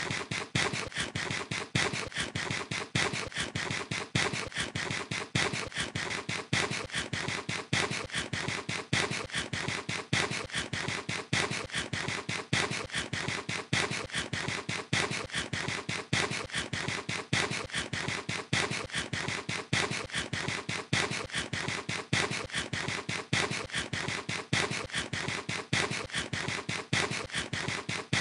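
Fast, continuous crunching and smacking of a mouth biting kernels off a corn cob close to the microphone. The sharp crunches come several times a second with no let-up.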